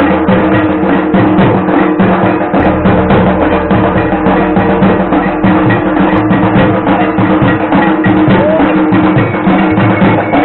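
Loud, fast drumming in an even, rapid beat, with a steady held drone underneath.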